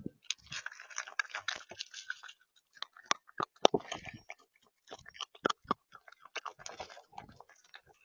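Raccoon eating birdseed and scrabbling on a camera bird feeder's seed tray, heard close up: a dense run of crackling crunches in the first couple of seconds, then irregular sharp clicks and crunches of claws and seed.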